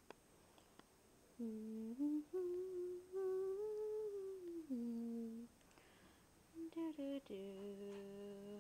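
A woman humming a tune in two phrases of long held notes, the first rising and then falling back, the second ending on a long low note.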